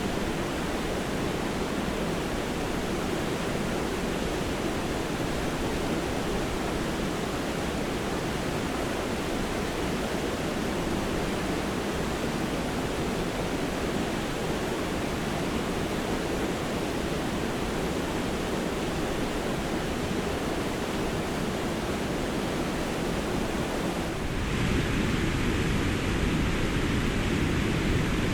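Water pouring over a dam, a steady, even rush of falling water. About 24 seconds in it switches abruptly to a louder, fuller rush, the dam heard from a closer or different spot.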